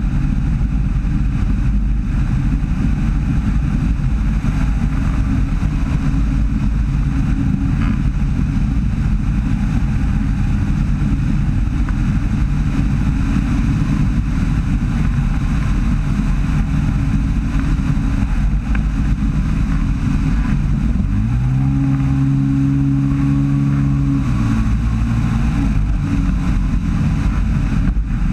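Weight-shift microlight trike descending to land, its engine running under heavy wind rush on the microphone. About 21 seconds in, the engine note rises as power is briefly added, then drops back about three seconds later.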